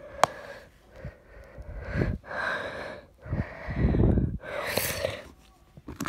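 A person breathing hard and gasping right at a phone's microphone: several heavy breaths in and out, some blowing on the mic, with a sharp click shortly after the start.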